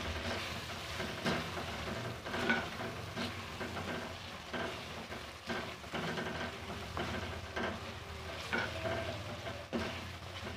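A spatula stirring and scraping onion-tomato masala in a metal karahi, over the sizzle of the masala and spices frying in oil. The spatula scrapes or knocks against the pan about every second.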